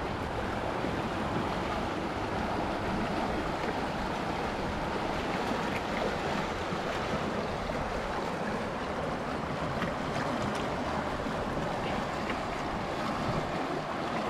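Steady rush of flowing river water, with a few faint clicks here and there.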